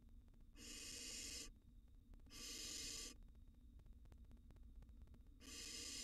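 Barn owl nestlings giving three harsh hissing calls, each just under a second long, with short pauses between them.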